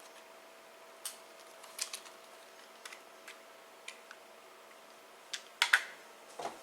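Irregular light clicks and taps, with a louder cluster of clicks about five and a half seconds in, over a faint steady hum.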